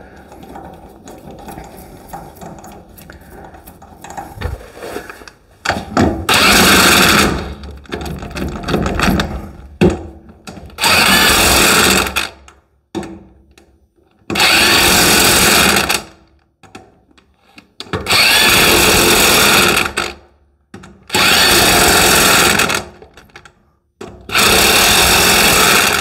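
Pneumatic impact wrench running the lug nuts down onto a steel wheel in six loud bursts of about a second and a half each, a few seconds apart. The bursts follow a few seconds of quieter handling noise as the nuts are started by hand.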